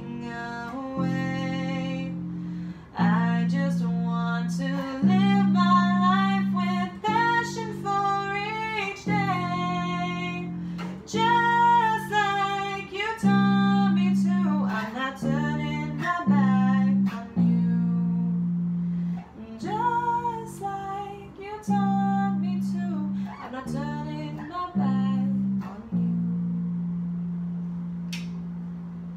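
A woman singing to her own electric bass through a small practice amp: single plucked bass notes, each held a second or two, under the sung melody. Near the end the singing stops and a last long bass note rings and fades.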